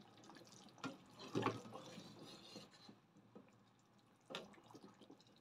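Metal ladle in a large pot of beef rawon broth, liquid splashing and dripping faintly as it lifts meat and stirs. A few soft splashes come about a second in, and one more about four seconds in.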